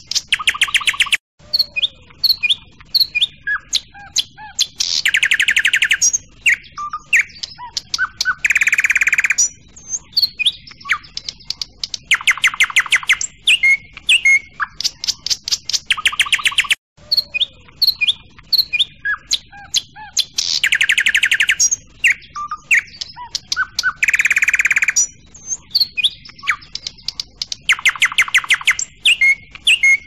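Songbirds chirping and singing, with repeated bursts of fast, even trills between the chirps. It is a looped recording: a brief dropout, then the same stretch of song starts over about every fifteen seconds.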